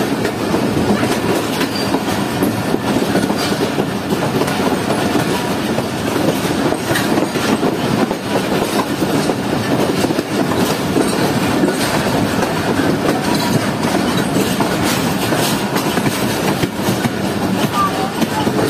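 Passenger train coaches rolling close alongside on the adjacent track, heard from an open coach doorway: a steady loud rumble of wheels on rail with clickety-clack over the rail joints.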